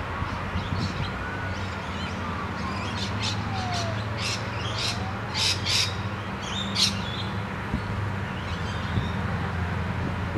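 Birds calling in short chirps and squawks, busiest and loudest in the middle, over a steady low drone from the diesel engines of a distant Adelaide Metro 3000-series railcar set.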